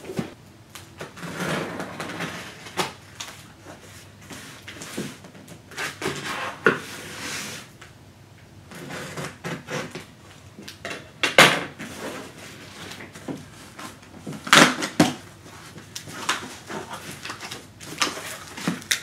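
Cardboard boxes being handled on a tabletop: irregular rustling and scraping of cardboard with a few sharp knocks, as a tape-sealed shipping carton is set down and its flaps are pulled open.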